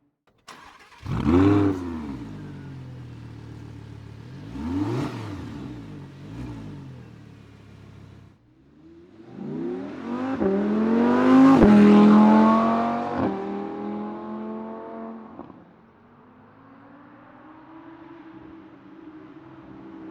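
Audi R8 engine catching about half a second in and given a few throttle blips, then accelerating hard through several gear changes, each change a sharp break in the rising engine note, before fading away. A steady engine note slowly rises again near the end.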